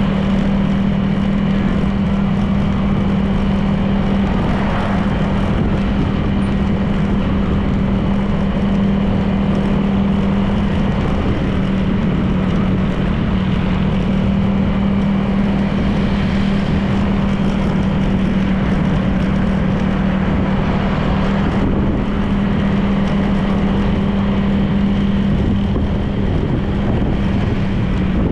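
Honda PCX 160 scooter's single-cylinder engine running at a steady cruise, its note holding one even pitch, with road and wind noise.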